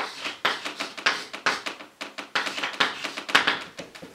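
Chalk writing a word on a blackboard: a quick run of short scratching and tapping strokes with brief pauses between them.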